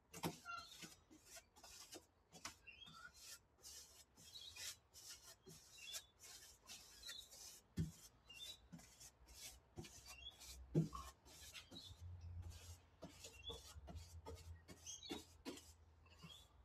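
Paintbrush scrubbing paint onto the bare metal floor of a Toyota Hilux cab: faint, quick repeated scratchy strokes, several a second, with a couple of light knocks.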